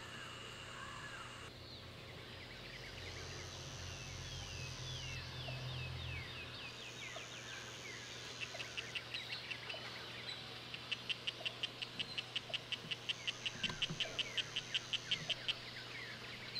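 Poison dart frogs calling: quick chirps sliding down in pitch, then in the second half rapid trains of short clicking chirps, about five a second. Calling of this kind goes with the courtship of Oophaga sylvatica.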